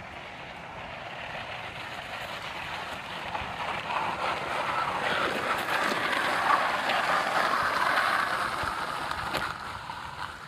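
Homemade electric motorcycle riding past, a quiet hiss of tyres and drivetrain with no engine note, growing louder as it approaches, loudest a little past the middle, then easing off as it slows.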